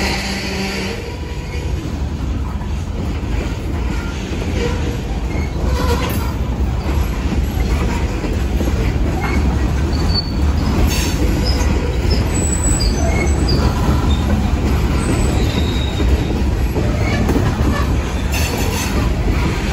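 Open-top hopper cars of a freight rock train rolling past at close range: a steady rumble of steel wheels on rail, with brief, scattered high squeals from the wheels.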